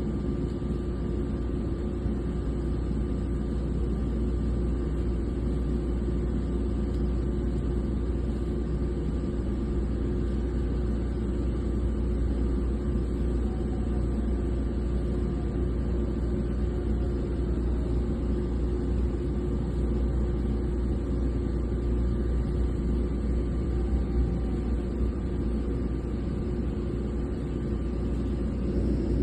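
Drilling-rig machinery running steadily: a loud, even, low rumble with a faint steady whine above it.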